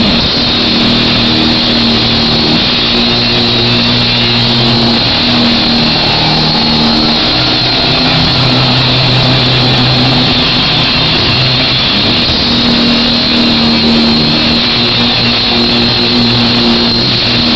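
Loud amplified horror-punk music from a live concert, heard from the crowd and heavily distorted: held low notes that shift every second or two over a dense, noisy wash.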